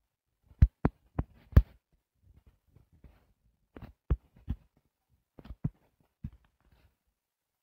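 Dull taps on a tablet's touchscreen as lines are drawn on it: about ten short knocks in small clusters of two to four, with pauses between.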